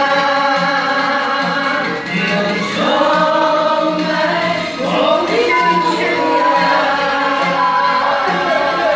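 Music: a sung song with a steady beat.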